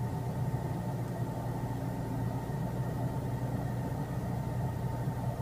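An engine running steadily with a low, even hum and a faint steady whine above it.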